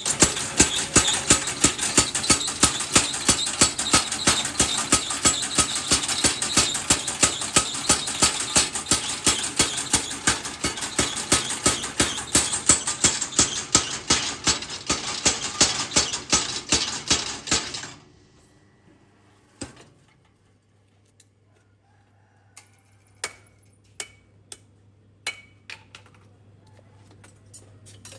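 Machine forging hammer pounding steel in a fast, even run of blows for about 18 seconds, then stopping abruptly. A low hum carries on, with a few separate sharp taps near the end.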